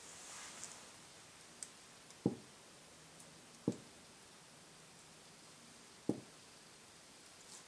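A serrated knife slicing mango cubes off the skin, with a soft scrape at the start and a few faint ticks. Three short soft knocks, a second or two apart, are the loudest sounds.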